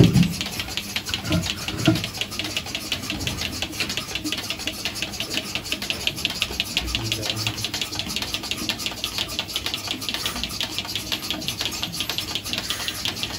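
A steady, rapid mechanical clicking, about four to five clicks a second, with a few dull knocks in the first two seconds.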